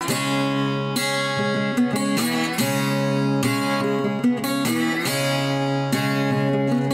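Background music: acoustic guitar strumming chords, changing chord every second or so.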